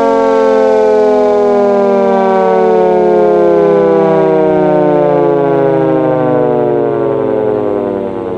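Castle Castings air raid siren winding down: a loud siren tone sliding steadily lower in pitch, getting quieter near the end.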